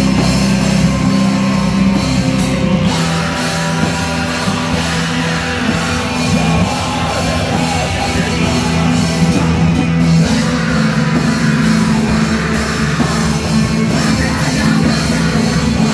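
Live heavy metal band playing: distorted electric guitars, bass guitar, drum kit and keyboard, with a vocalist singing into the microphone.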